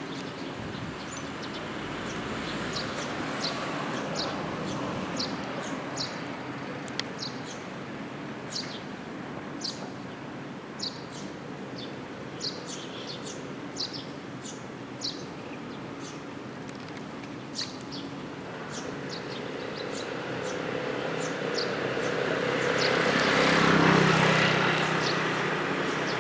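A small songbird chirping repeatedly, short high falling chirps about once a second, over a steady outdoor background hum. Near the end the background swells and fades as a vehicle passes.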